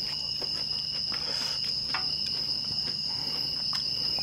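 Steady, unbroken high-pitched chirring of night insects, with a few faint clicks over it.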